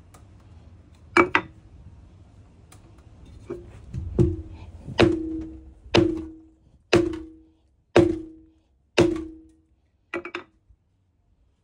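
Hammer blows on a car wheel rim to stop a leak that hisses when the tire is aired past 25 psi. A quick pair of strikes comes first, then about one a second, ending with a quick double. Each blow rings with a metallic tone that dies away.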